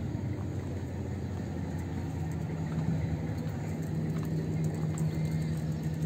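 An engine running steadily: a low rumble with a constant low hum.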